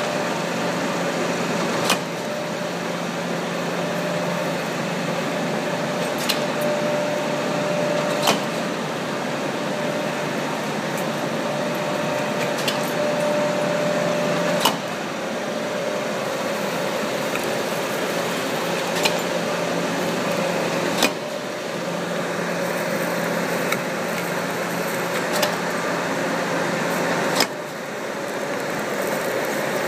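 Butler metal planer running, its reciprocating table carrying a steel forging under the cutting tool while it machines dovetails: a steady mechanical drive hum with a sharp knock at each end of the stroke. A long stroke and a shorter return repeat about every six seconds.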